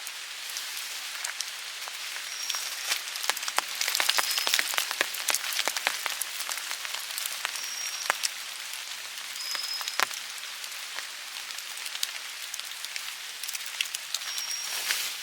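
Rain pattering on surfaces, a steady hiss full of sharp individual drop hits, busiest about four to five seconds in. A short, high whistled note repeats several times over it.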